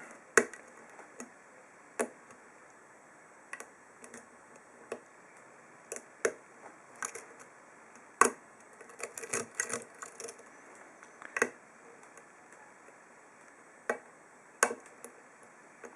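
Lock pick clicking and ticking against the serrated pin tumblers of a 7-pin ASSA 2 padlock, small sharp clicks at irregular intervals with a quick cluster about nine to ten seconds in, as pins are picked and set one by one.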